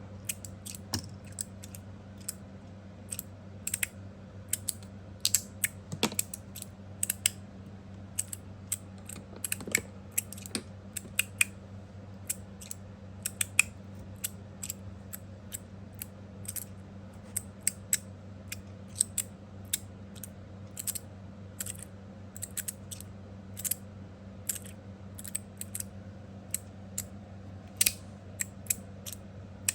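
Copper and stainless steel magnetic fidget slider being worked back and forth by hand: its stainless plates snap into their magnetic stops with sharp metallic clicks, irregular, singly or in quick pairs.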